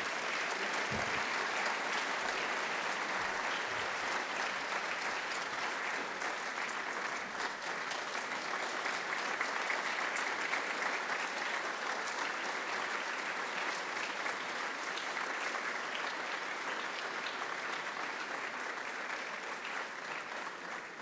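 Large audience applauding steadily for a long stretch, dying away near the end.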